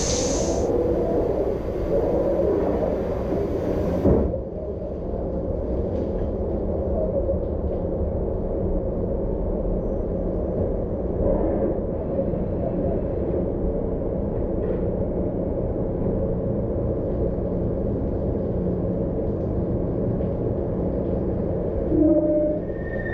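Mori Seiki NT5400/1800SZ CNC turning center running under power: a steady low rumble and hum. A higher hiss cuts off with a click about four seconds in.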